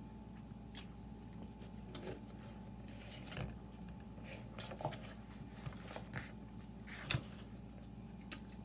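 Faint chewing and lip-smacking of people eating chicken wings and pizza, with scattered soft clicks about every second over a steady faint hum.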